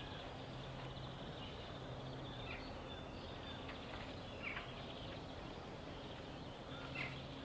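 Outdoor ambience with birds calling: several short chirps, the loudest about seven seconds in, over a steady background hiss and a low hum that comes and goes.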